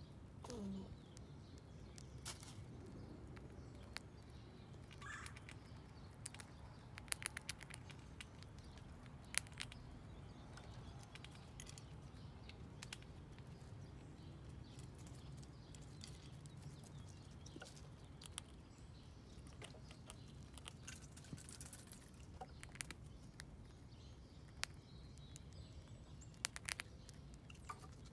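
Gray squirrel eating dried corn kernels: irregular sharp clicks and crunches, sometimes in quick runs of several, over a steady low background hum.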